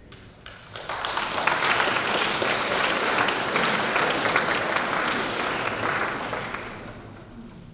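Audience applauding, swelling about a second in and dying away over the last couple of seconds.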